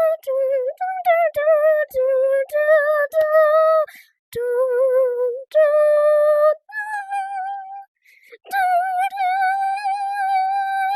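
A child's high voice humming a wordless melody note by note, each note wavering slightly, ending on one long held note.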